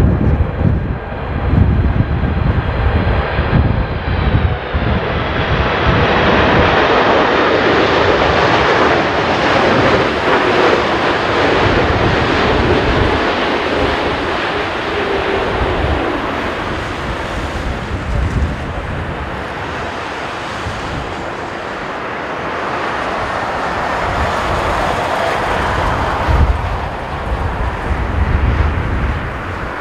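Boeing 747-8 freighter's four GEnx turbofans on landing approach: jet engine noise swells as the aircraft passes close by, its pitch falling as it goes past, then eases as it nears the runway. Wind gusts buffet the microphone throughout.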